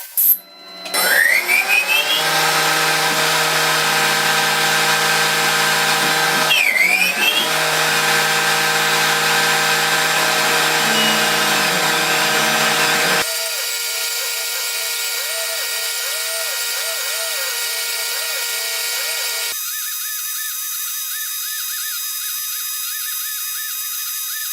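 Metal-working CNC machine running with a steady high whine. Its pitch rises about a second in, then dips and climbs again near seven seconds as the spindle changes speed. The sound changes abruptly twice, at about 13 and 20 seconds, to other steady machine whines.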